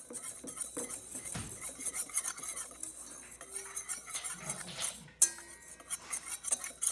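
A utensil stirring the sifted dry flour mixture in a mixing bowl, with quick scraping and clinking against the bowl; a sharp knock about five seconds in.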